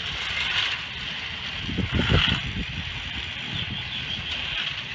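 Battery-powered Thomas & Friends toy trains running on plastic track: a steady whir from their small motors with the clatter of wheels on the track, louder for a moment about two seconds in.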